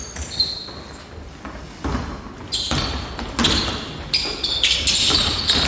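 A basketball thudding on a hardwood gym floor during a live drill: a handful of irregular dribbles and catches, with short high squeaks of sneakers on the floor, all echoing in a large hall.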